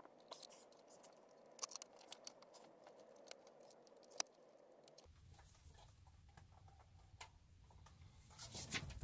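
Near silence with faint scattered clicks and taps from an aftermarket touchscreen radio unit being handled, with one sharper click about four seconds in.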